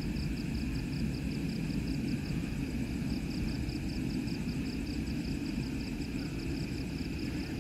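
Insects chirping in rapid, even high-pitched pulses, over a steady low rumble.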